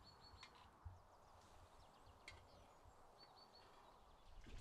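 Faint outdoor quiet in which a small bird gives two brief runs of short, high chirps, one at the start and one about three seconds in. Two soft clicks come about one and two seconds in, from metal skewers being set on a charcoal brazier.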